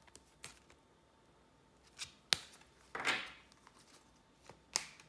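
Trading cards being handled: a few light clicks and taps, with a short sliding swish about three seconds in.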